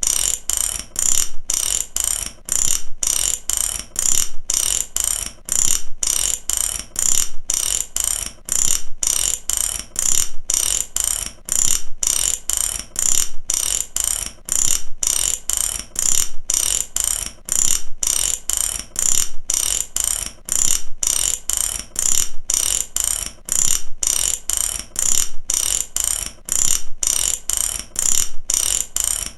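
Ratchet wrench clicking, its pawl snapping over the teeth in short, even runs that repeat without a break.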